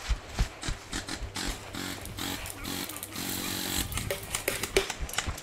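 Several short buzzing bursts of airsoft electric-gun fire, the longest about a second long a little past the middle, over crunching footsteps in dry fallen leaves.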